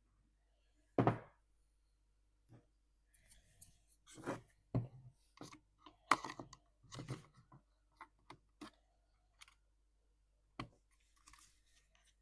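Irregular knocks, clicks and short scrapes of hands working on parts: one sharp knock about a second in, a busy run of clicks and scrapes in the middle, and another knock near the end.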